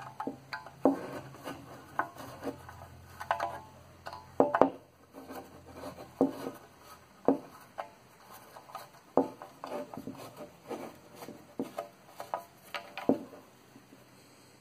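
Flat-blade screwdriver working at the stuck slotted screws of a backsaw's wooden handle: irregular clicks and knocks as the tip catches and slips in the screw slots, some with a brief metallic ring.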